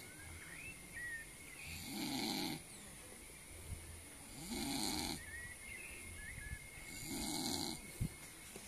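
Slow, even snoring: one long snore about every two and a half seconds, three in all.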